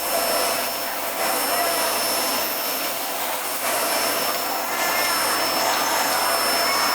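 Household vacuum cleaner running steadily, a continuous rushing noise with a steady high-pitched whine.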